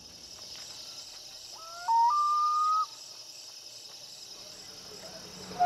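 Night ambience of insects chirring steadily, with one short whistled call about two seconds in that rises in steps and then holds a single note.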